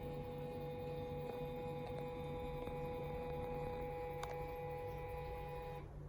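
A steady electrical-sounding hum with a few clear tones over a low rumble. It dips out briefly near the end.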